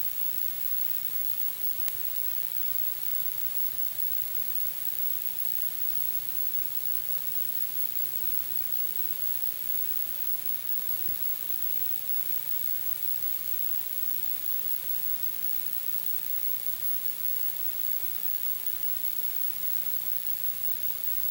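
Steady hiss from an old videotape transfer, strongest in the highs, with a faint low hum underneath. There is a tiny click about two seconds in and another near the end.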